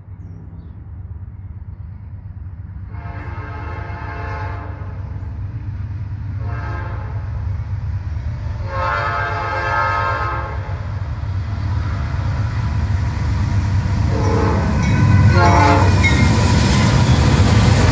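Norfolk Southern freight train with three diesel locomotives approaching and passing, the lead locomotive sounding its horn in several long and short blasts. The low engine rumble grows steadily louder until the locomotives pass close by near the end, with wheels clattering on the rails.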